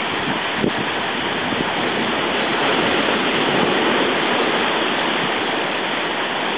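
Steady rush of seawater surging over rocks and pouring down into a tide pool, swelling a little in the middle.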